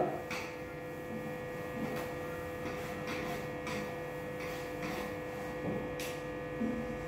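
A cloth rubbing across a whiteboard in a series of wiping strokes, over a steady electrical hum.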